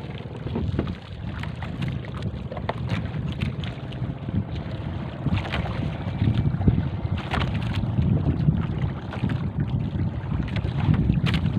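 Wind rumbling on the microphone over water lapping against a small fishing boat, with scattered light knocks and splashes.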